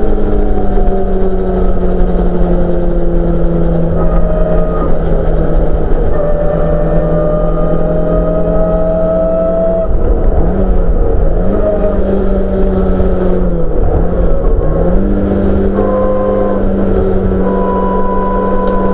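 Honda F20C 2.0-litre four-cylinder engine in a Mk2 Ford Escort race car, heard from inside the cabin, running hard at high revs on track. Its pitch sags slowly, dips sharply and recovers twice about ten and fourteen seconds in, then holds steady again.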